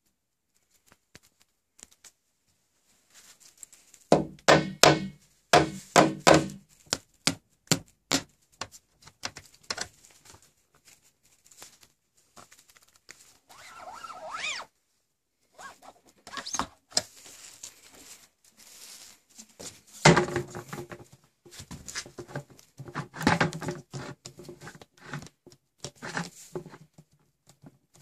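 Hollow plastic traffic cones being handled and pulled apart from a stack: repeated knocks and thunks of plastic on plastic, with rubbing and scraping in between. The clatter comes in two loud bunches, about four seconds in and again about two-thirds of the way through.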